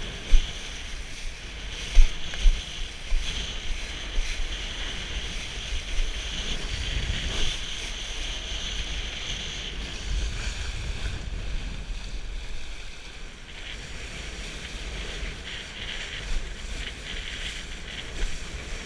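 Wind buffeting the microphone of a kitesurfer's body-worn camera in a gusty low rumble, over a steady hiss of water spraying off the kiteboard as it planes across choppy water.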